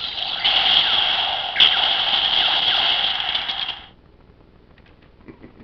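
Electronic sound effect played through a toy's small built-in speaker, tinny and thin with no bass, with a sharp hit about a second and a half in, cutting off abruptly near four seconds.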